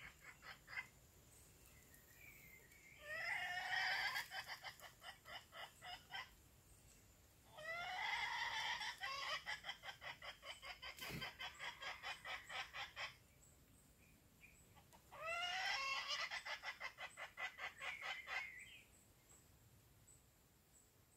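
Decoy hen clucking in three bouts. Each bout starts with a few rising-and-falling calls and breaks into a fast run of short clucks, about five a second.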